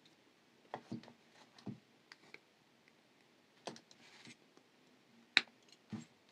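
Scattered small clicks and taps of metal jewellery pliers and thin craft wire being handled while wire is bent into shape, irregular and spaced apart, with one sharper click about five seconds in.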